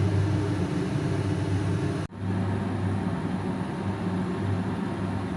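Steady low mechanical hum over a hiss, like a motor or fan running, with a brief dropout about two seconds in.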